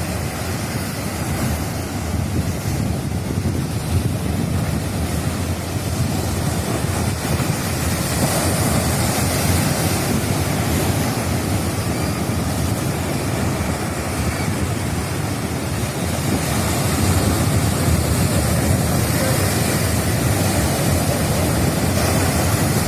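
Rough sea surf breaking and washing on the shore, a dense, continuous rush, with wind buffeting the microphone. It grows a little louder in the second half.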